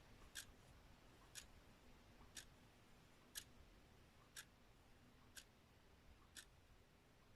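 Faint ticking of a clock, one tick a second, evenly spaced.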